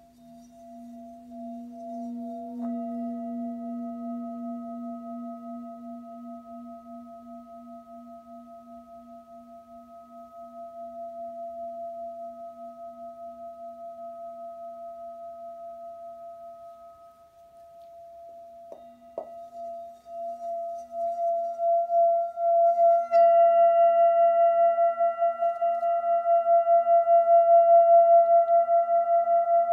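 Hand-hammered Nepalese Jambati singing bowl, 18 cm across, ringing with a low hum and a higher tone, both pulsing with a steady wobble. The sound eases off midway, a couple of light knocks come about 19 seconds in, then the bowl swells back up and sings loudly towards the end, with more overtones joining.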